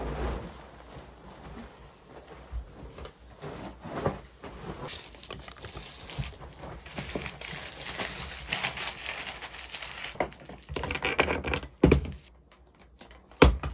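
Duvet and bedding being shaken out and spread over a bed, the fabric rustling and flapping, with a couple of sharp soft thumps near the end.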